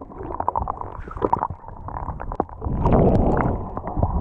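Water sloshing and gurgling, with many small clicks and knocks; it swells louder about three seconds in.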